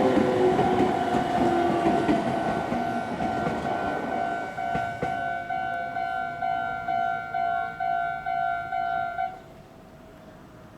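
A Meitetsu Inuyama Line train runs through a Japanese level crossing, its wheel and rail noise loud at first and fading over the first few seconds. The crossing's electronic warning bell rings its even "kan-kan" beat, about two strokes a second, then stops abruptly about nine seconds in.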